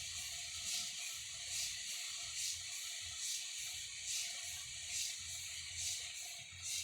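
A sleeping child snoring: short hissing breaths that repeat evenly, a little more than one a second, over a faint steady hum.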